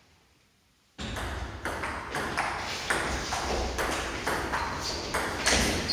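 Table tennis rally in a doubles match: the ball clicking off rackets and table in quick alternation, about two to three hits a second. The rally starts about a second in, after a brief near-silent gap.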